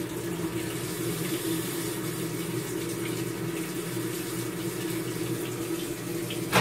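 GE GTW330ASK4WW top-load washing machine filling at the start of a cycle: water spraying into the drum, steady and even, with a low hum underneath.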